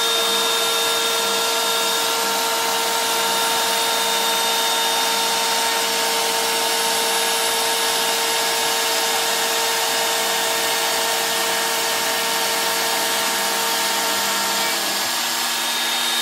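Router spindle on a CNC machine running steadily, its bit cutting a shallow 3 mm groove through PVC lumber as the gantry traverses: a steady high whine over a hiss.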